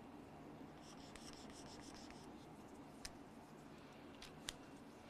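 Faint scratching of writing on a board, a rubbing stroke sound for about a second and a half near the start, then a few light taps.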